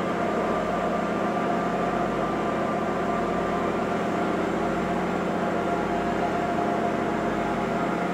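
Passenger ferry's engine running at cruising speed, a steady drone that holds one pitch throughout.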